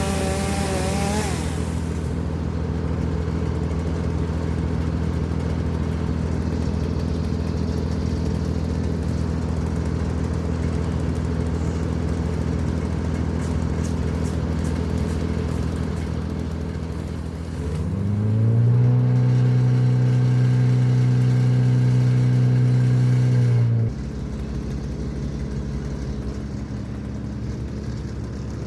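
An engine running steadily, then revving up about eighteen seconds in, held at higher speed for about six seconds and dropping back suddenly to a lower running speed.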